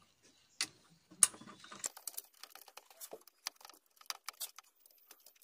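Irregular light metallic clicks and taps of a spark plug socket and extension bar being handled and turned as a spark plug is screwed into the engine's cylinder head, with two sharper clicks about half a second and just over a second in.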